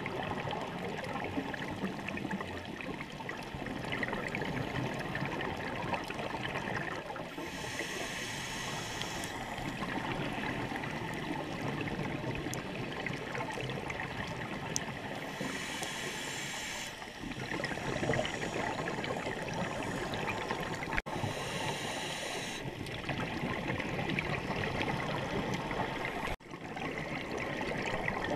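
Underwater ambience on a scuba dive: a steady watery rush, with several bursts of bubbling hiss a few seconds apart from divers' regulators exhaling.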